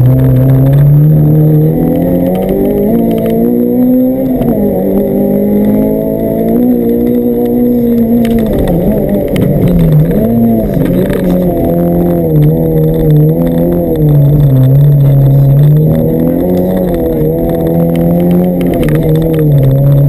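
Honda Civic rally car's B16B 1.6-litre VTEC inline-four heard from the cabin, running hard under load. Its pitch climbs over the first several seconds, dips, then rises and falls repeatedly as the car is driven through the stage.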